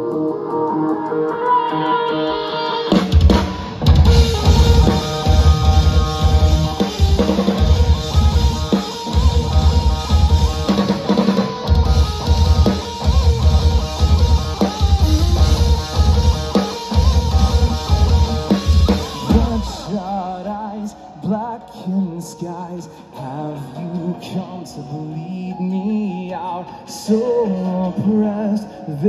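Live rock band playing, with drum kit and electric guitars. A held intro chord gives way about three seconds in to the full band playing loud with heavy drums, which drops to a quieter, sparser section about twenty seconds in.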